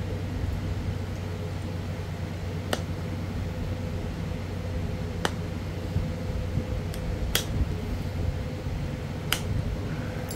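Sharp clicks of small flakes popping off a Florida coral arrowhead as its notches are pressure-flaked, about five clicks a second or two apart, over a steady low hum.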